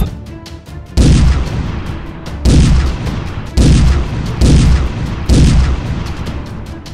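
Cannon-fire sound effects: a run of heavy booms about a second apart, each trailing off in a deep, falling rumble.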